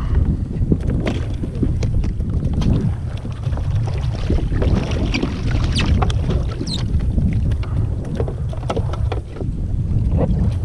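Steady wind rumble on the microphone over water moving against a kayak hull, with scattered short splashes and knocks as fish and gear are handled on board.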